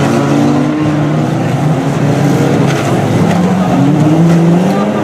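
Several banger racing cars' engines running and revving at once, their pitches overlapping and rising and falling.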